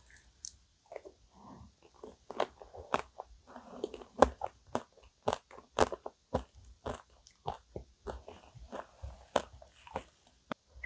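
Close-miked chewing of a mouthful of vanilla ice cream cake, heard as a run of irregular sharp mouth clicks.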